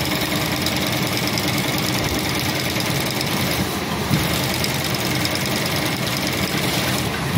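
Industrial single-needle lockstitch sewing machine running steadily at sewing speed, with a fast, even stitching rhythm, as it sews red webbing tape folded by a single-fold piping folder onto fabric.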